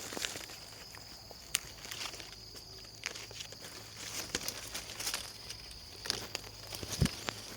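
Rustling of leaves and branches with scattered sharp clicks and snaps while rambutan is being harvested, and a thump near the end. A steady high tone runs underneath.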